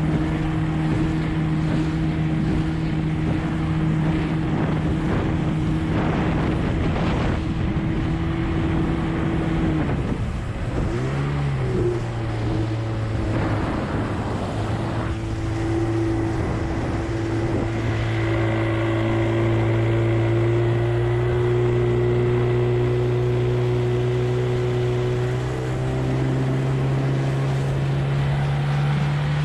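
A 20 hp Evinrude outboard motor pushing a small hydroplane, running steadily at speed. About ten seconds in it is throttled back to a lower steady drone, and it picks up pitch again near the end as the boat speeds up. Wind and water hiss run under it throughout.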